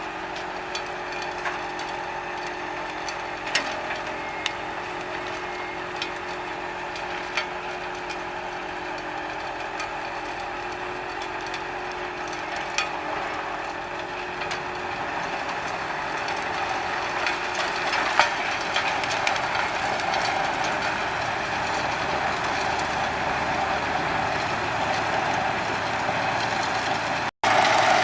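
Wood chipper running steadily, with a few sharp knocks of wood going through it. It grows louder about halfway through.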